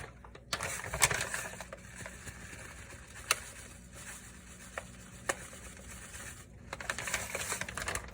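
Shredded coconut being added to a blender jar: soft rustling of the ingredient container with a few light, sharp clicks and taps as things are handled.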